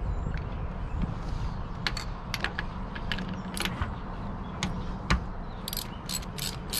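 Scattered metal clicks and clinks as a 13/16 spark plug socket and ratchet are fitted onto an outboard motor's spark plug. From about six seconds in, the ratchet clicks in an even run of about four clicks a second as it is worked to loosen the plug.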